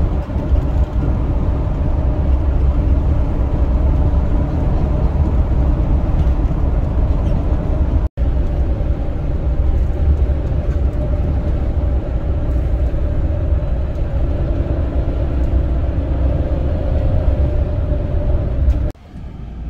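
Steady road and engine noise heard inside a van's cabin while driving at highway speed, mostly a deep low rumble. The sound cuts out for an instant about eight seconds in and drops sharply in level just before the end.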